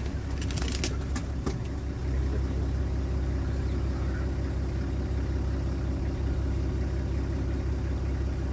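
Safari vehicle's engine running steadily, a low hum, with a few faint clicks in the first second and a half.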